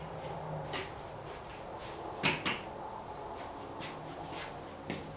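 Workshop handling noise: a few light knocks and clicks from tools and lumber being set down and moved. The loudest is a quick double knock a little over two seconds in, over a steady low hum.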